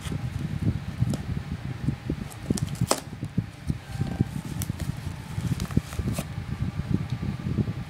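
Hands handling and picking at a taped cardboard shipping box, with a few sharp taps or clicks, over a constant low rumble.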